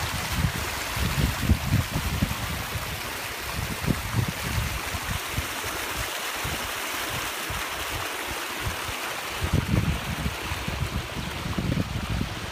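Spring water running steadily along a narrow channel cut in the travertine, with wind buffeting the microphone in gusts, strongest about a second in and again near the end.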